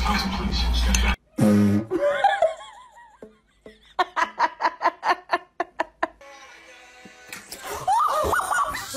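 A person laughing hard in a quick run of short 'ha' bursts, about five a second, midway through. Music plays under the first second.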